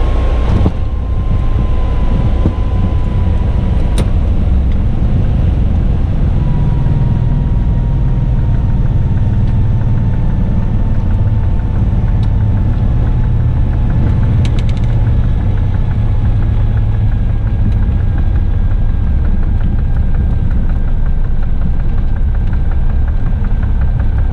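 Piper PA-28-235 Cherokee's six-cylinder Lycoming O-540 engine running at low power with the propeller turning, a steady low drone as the aircraft rolls out and taxis after landing, with a faint whine slowly falling in pitch.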